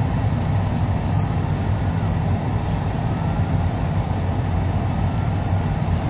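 Steady low rumble of a car's engine and road noise, heard from inside the cabin.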